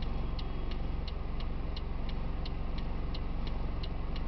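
Even, rapid ticking, about three clicks a second, over a steady low mechanical hum.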